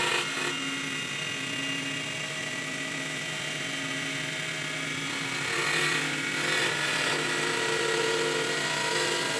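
CNC mini wood lathe running, a steady motor whine mixed with the noise of the tool cutting the turning wood, which grows louder about five and a half seconds in.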